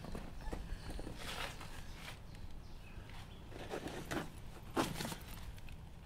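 A person breathing unevenly, with a few short audible breaths, the clearest near the middle and toward the end, over a low steady background hiss.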